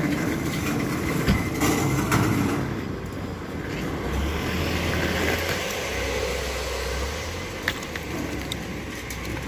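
Outdoor car park ambience: a low rumble that swells about halfway through under a steady hiss, with a few sharp clicks.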